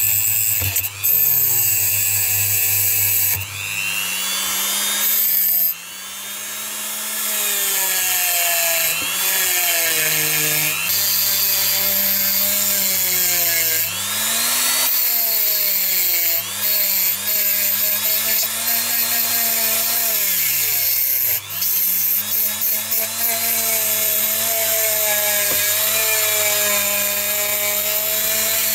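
Handheld rotary tool spinning a steel wire wheel brush against a corroded diecast metal body, stripping deep corrosion. The motor whine repeatedly dips in pitch and recovers over a steady scratchy hiss, easing off briefly a few times.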